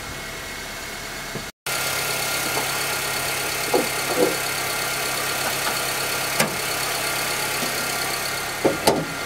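A 2010 Honda Civic's four-cylinder petrol engine idling steadily with the bonnet up, with the light tick of its solenoid fuel injectors over a quiet valve train. A few sharp clicks near the end come from the bonnet prop rod being handled.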